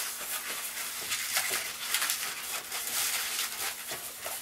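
Inflated 260Q latex modelling balloon squeaking and rubbing under the hands as it is squeezed and twisted into pinch twists.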